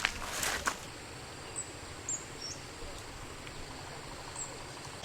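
Outdoor ambience: a couple of rustling steps at the start, then a steady background hiss with a few faint, short high chirps, like a small bird.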